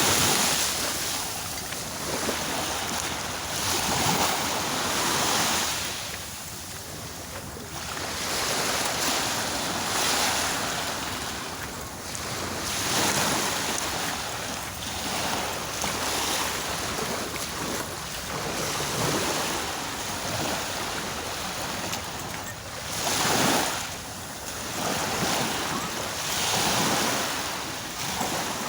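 Sea waves washing ashore, a steady rushing that surges and eases every few seconds, with wind on the microphone.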